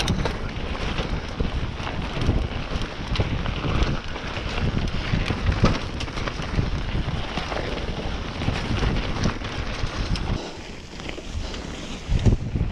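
Wind buffeting the microphone of a ride camera during a mountain bike descent, with tyres rolling over rough trail and the bike clattering through many small knocks. The noise eases about ten seconds in, then a single sharp knock comes near the end.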